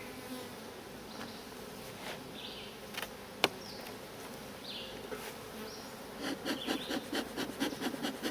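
Honeybees buzzing steadily around an open hive. A single sharp click comes about three and a half seconds in, and a quick run of knocks near the end.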